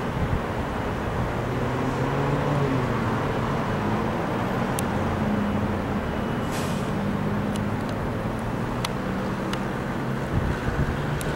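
A steady, low engine drone whose pitch drifts slowly, with a few sharp clicks in the second half.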